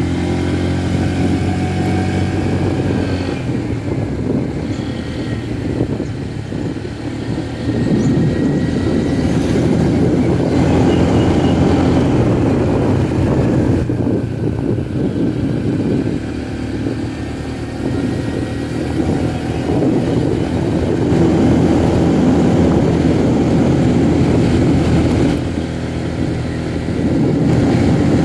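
Motor scooter engine running at riding speed under steady wind and road rush. The engine note swells and eases off a few times with the throttle.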